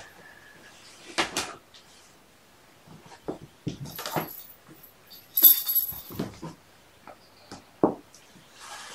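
Scattered rustles, taps and clicks of litter scooping and kittens scrambling around a fabric cat ball, with one louder gritty scraping rattle about five and a half seconds in.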